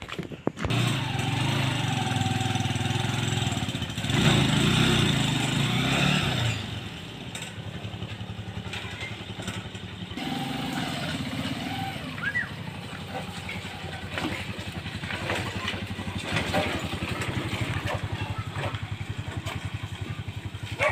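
Small motorcycle engine running steadily on the move, its firing beat even throughout, louder for a couple of seconds about four seconds in, with a few voices over it.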